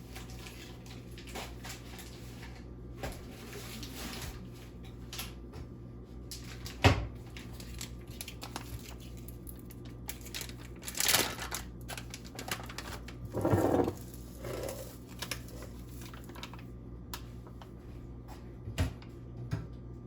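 Kitchen handling sounds over a low steady hum: a sharp knock about a third of the way in, then a brief scrape, a short rattling clatter and a few light clicks near the end.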